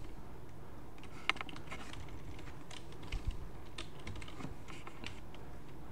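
Computer keyboard being typed on: an irregular run of key clicks starting about a second in, as a short command is backspaced and retyped.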